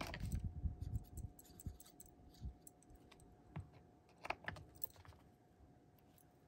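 Scattered light clicks and taps of a glue bottle and small paper pieces being handled and pressed down on a card, with a few sharper clicks around the middle.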